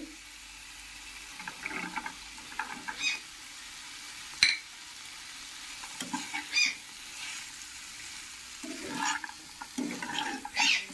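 Metal spatula stirring and scraping potatoes and green peas around a kadai, with short clinks and scrapes against the pan over a low sizzle of frying masala; one sharp clink about four and a half seconds in.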